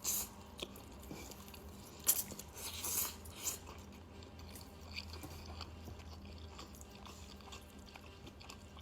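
A person chewing food close to the microphone, with a few sharp crunchy bites in the first few seconds, then quieter steady chewing.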